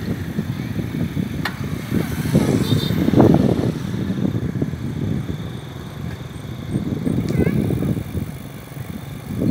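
Wind buffeting a handlebar-mounted camera's microphone, with road rumble from a bicycle riding along a street.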